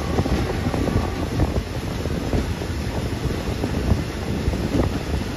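Moving passenger train heard from inside a carriage: a steady low rumble with irregular small knocks and clatter, and wind buffeting the microphone.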